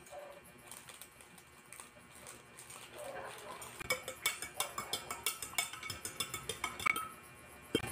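A metal spoon stirring tea in a glass pitcher, clinking rapidly against the glass from about four seconds in, after a quieter start.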